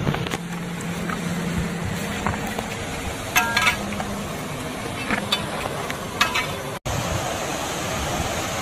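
Footsteps on loose river stones, with stones clinking sharply against each other a few times over a steady hiss. After a sudden cut near the end, a steady rush of flowing river water.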